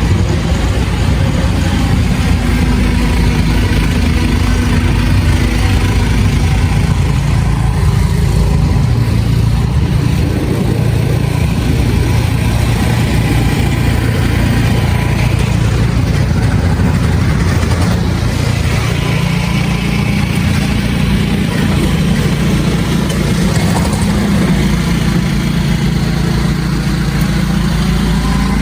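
City street traffic: the steady low hum of motor vehicle engines idling and running, with hum tones that shift slowly as vehicles come and go, over a constant background hiss.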